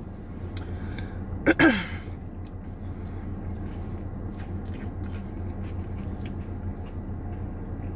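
Steady low hum inside a car, with faint clicks and mouth sounds of someone eating ice cream. A short vocal hum with falling pitch comes from the woman about a second and a half in.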